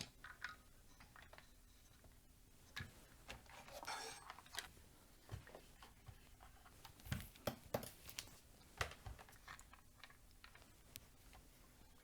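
Faint, scattered clicks and light taps of handling a multimeter and its test probes against an opened battery charger's circuit board, with a brief rustle about four seconds in.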